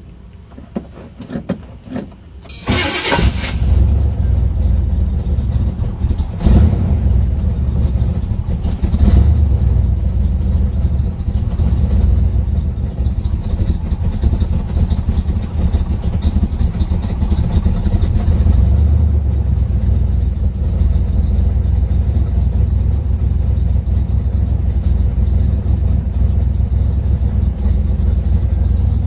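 A Camaro's new four-bolt-main 350 small-block V8, still in break-in, heard from inside the cabin: after a few short clicks it starts up about three seconds in, then runs with a steady deep rumble, briefly louder twice, around six and nine seconds.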